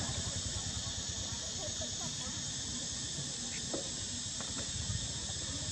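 Insects droning steadily with a high, even hiss, over a constant low rumble, with a few faint short chirps scattered through.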